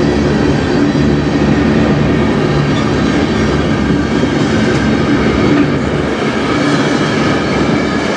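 Open-top hopper cars of a freight train rolling past close by: a loud, steady rumble of steel wheels on the rails.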